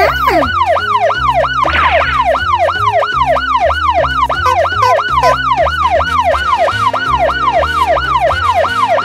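Police siren sound, a fast rising-and-falling wail repeating about three times a second.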